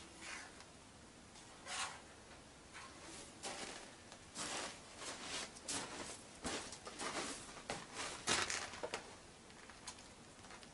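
Irregular run of short swishes and wet pats, loudest about eight seconds in, as wet investment plaster is scooped by hand from a steel bowl and daubed onto a wax sculpture.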